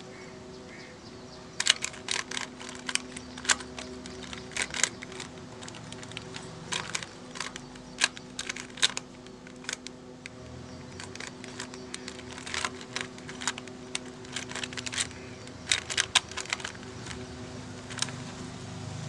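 A 3x3 Rubik's cube being turned by hand, its plastic layers clicking in quick, irregular runs over a faint steady hum.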